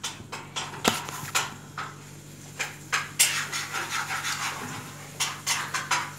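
Dishes and cutlery clinking and knocking on a table in irregular sharp clicks, with a short rustle about three seconds in, over a steady low hum.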